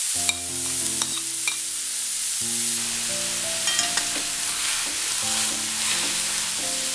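Mashed potato and sautéed red spinach stirred with a steel spoon in a metal pan on the heat: a steady soft sizzle with a few sharp clicks and scrapes of the spoon against the pan. Quiet background music with held chords plays underneath.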